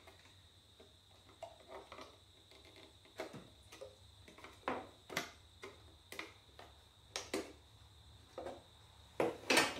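Irregular light clicks and taps of hard plastic and a screwdriver as the front plastic cover of an EV battery module is prised loose, with the loudest few clicks close together near the end.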